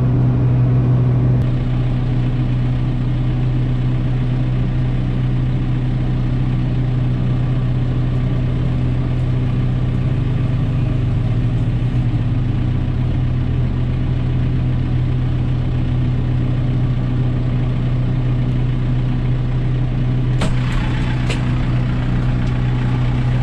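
Kubota M6040 tractor's four-cylinder diesel engine idling steadily, heard from inside the cab. Near the end come a few sharp clicks as the cab door is opened, and the engine sounds brighter after that.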